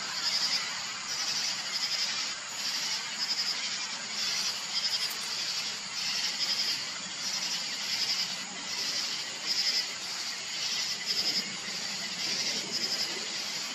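Night insects calling outdoors: high-pitched chirps repeating about one to two times a second over a steady hiss.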